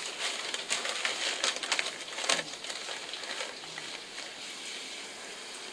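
Scratchy rubbing and rustling strokes, as of a rubber-gloved hand scrubbing, dense for about the first two and a half seconds and then dying away to a faint hiss; played through a laptop speaker.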